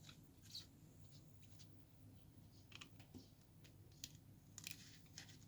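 Faint, scattered small clicks and light scraping from rubber vent caps being pulled off the cells of a lead-acid battery.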